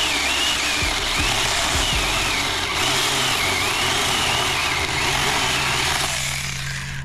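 Saker 4-inch mini battery chainsaw cutting through a thick stalk, its motor whine rising and falling as the chain bogs down and frees up in the wood. The cutting drops off near the end.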